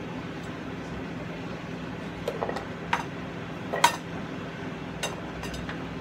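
Plates and kitchen utensils clinking and knocking against each other about six times, the loudest a little past the middle, over a steady low hum.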